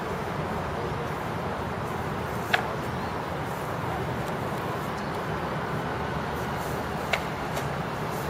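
Two sharp clacks of training swords striking each other, the louder about two and a half seconds in and a smaller one about seven seconds in, over a steady background rumble.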